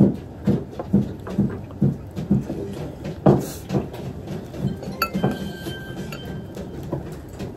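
Tableware at a meal: a ringing clink of utensils or porcelain about five seconds in, a sharper click a little before it, over a steady run of low voice-like pulses about twice a second.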